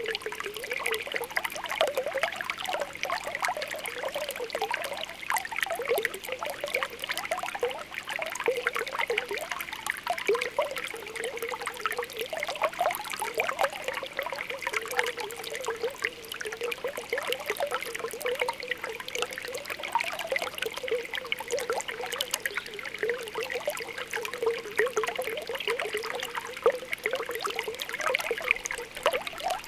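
Spring water welling up, bubbling and popping in a steady stream of small plops, with a trickle of flowing water.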